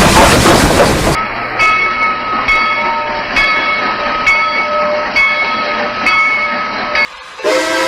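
Loud steam hiss that cuts off about a second in. It gives way to a train rolling slowly, with a click from the rail joints about once a second over a steady whine. A multi-note train horn sounds just before the end.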